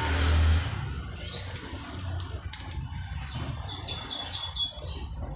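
Egg omelette frying in oil in a nonstick pan, a steady sizzle full of small crackles, with plastic spatula and spoon scraping and lifting it as it is turned.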